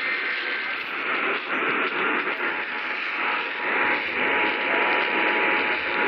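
AM radio static from a weak, distant station, fading in and out. About three seconds in, a faint steady two-note tone comes through the static: the Emergency Alert System attention signal of a test being received.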